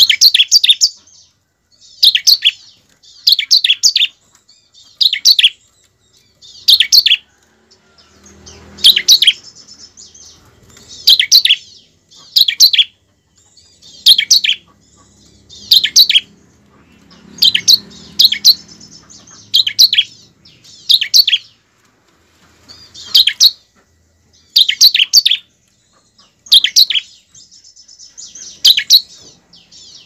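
Bar-winged prinia (ciblek) calling: short, loud bursts of rapid, sharp high chirps, repeated about every second and a half.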